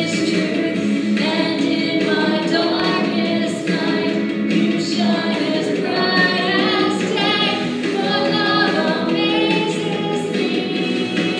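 Church congregation and singers singing a worship song together, with several voices holding sustained notes.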